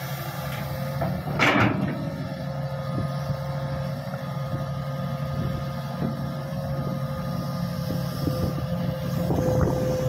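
Heavy diesel engines of a Hitachi 200 excavator and a Caterpillar D6G bulldozer running steadily together under load, with a steady hydraulic whine from the excavator. A loud, brief metallic clatter comes about a second and a half in, and a few lighter knocks follow.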